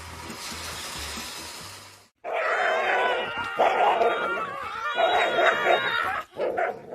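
A dog vocalizing in long, wavering, whining howls that bend up and down in pitch. Before it, about two seconds of faint background music.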